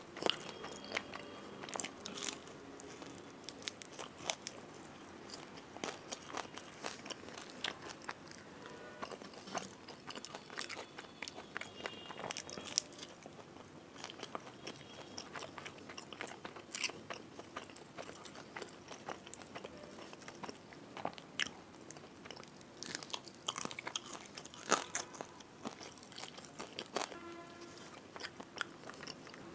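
Close-miked eating: crisp crunching bites and chewing of spice-crusted fried fish, with many sharp crunches spread throughout.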